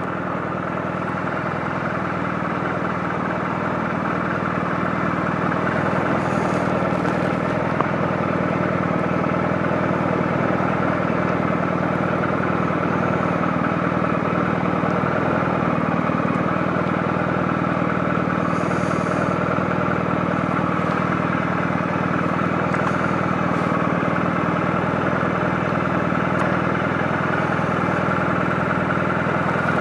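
Suzuki Burgman 650 maxi-scooter's parallel-twin engine running steadily, a hum with a thin steady whine above it. It grows a little louder over the first few seconds, then holds even.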